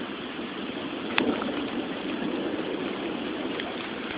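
Steady hiss of rain and running rainwater, with one sharp hit about a second in.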